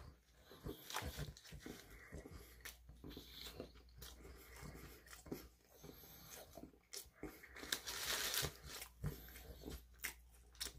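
A person chewing a bite of shawarma wrap, with irregular small wet mouth clicks and smacks. A short, louder hiss of noise comes about eight seconds in.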